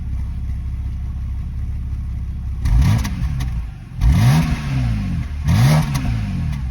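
BMW N52B25 2.5-litre straight-six engine idling, then revved three times, the pitch rising and falling back each time. The uploader puts its rough running and hesitation under revs down to camshaft timing faults (codes P0012 and P0015).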